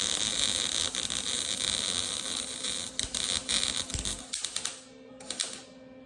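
Welding arc crackling in bursts while a hole in a car's exhaust pipe is welded shut. It runs steadily for about four seconds, stops, gives a short burst about a second later, and stops again near the end.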